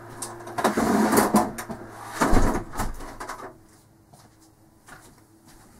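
A window being shut and latched: a stretch of rubbing and rattling with clicks, then a heavy knock a little past two seconds in. After that the noise from outside drops away and the room goes quiet.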